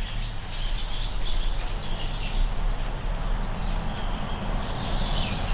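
Birds chirping now and then over a steady background of noise with a low hum.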